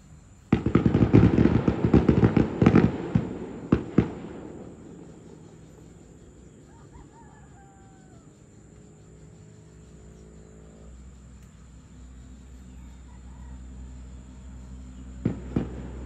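Fireworks going off: a sudden dense run of crackling bangs starts about half a second in and lasts some three seconds, then a few single pops trail off. Two more pops come near the end.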